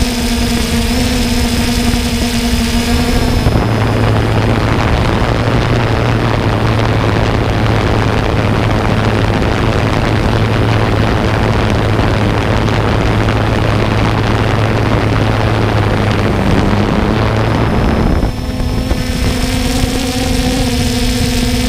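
3DR Solo quadcopter's motors and propellers, picked up by the GoPro it carries: a steady whine with several pitches. About three and a half seconds in it gives way to a loud rushing noise over a low hum, and the whine returns near the end.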